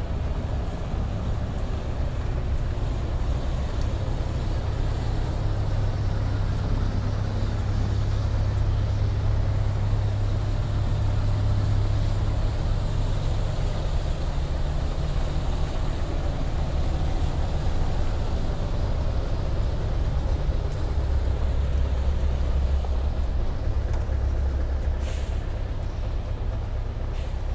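Engine of a heavy vehicle running close by: a steady low rumble that drops slightly in pitch about twenty seconds in. A brief hiss sounds near the end.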